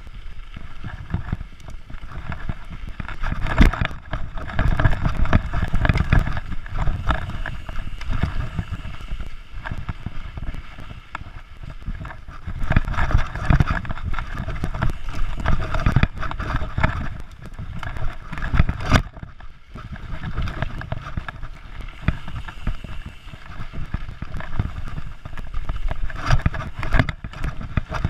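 Mountain bike ridden fast over a rough dirt trail. A continuous low rumble of tyres on dirt, with the frame and chain rattling and knocking over bumps, its loudness rising and falling with the terrain.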